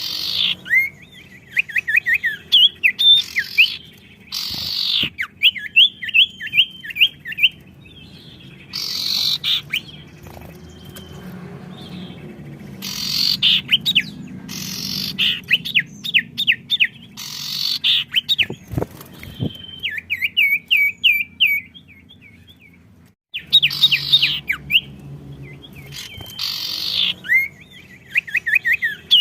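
Songbirds singing back and forth. Runs of rapid, evenly spaced chirping notes alternate with loud, harsh calls, with a brief break about two thirds of the way through.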